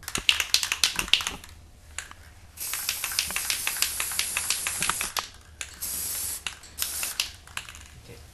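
Aerosol spray-paint can spraying blue paint onto a wooden pinewood derby car in three hisses: a long one of about two and a half seconds, then a shorter one, then a brief burst. The hisses are preceded by a quick run of rattling clicks in the first second.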